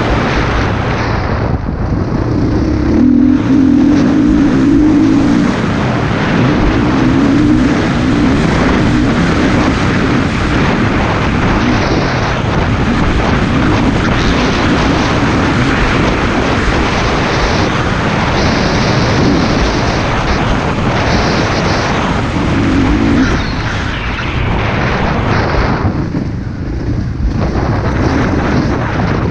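KTM 450 SX-F Factory Edition's single-cylinder four-stroke engine being ridden hard on a motocross lap, its note rising and falling with the throttle, which eases off briefly a couple of times.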